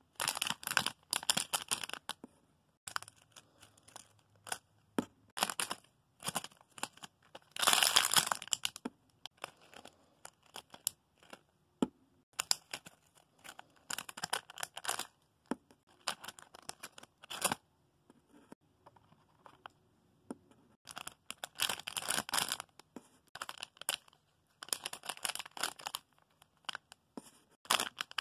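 Plastic squishy packaging bags crinkling and rustling in irregular bursts as they are handled, the loudest about eight seconds in.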